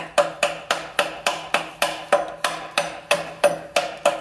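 Plastic-faced mallet giving a quick, even run of light taps, about four a second, to a heated, seized water pump pulley on a Jaguar XK engine to drive it off its shaft. Each tap is a sharp knock with a brief metallic ring.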